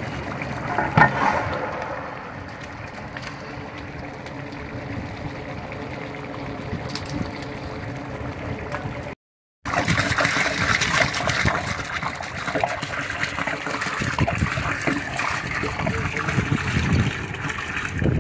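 Water poured in a steady stream into a large pot of chicken biryani masala, splashing into the gravy as it fills. Before a brief cut about halfway through, a quieter steady hiss from the simmering masala.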